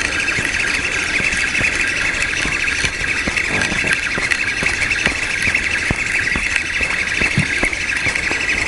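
A flock of birds chattering continuously, a dense steady chorus of calls, with a few faint clicks scattered through it.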